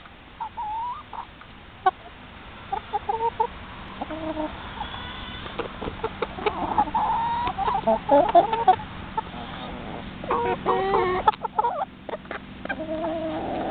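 A small flock of young hens clucking and calling close up, several at once, in short notes that waver up and down, with scattered sharp clicks among the calls.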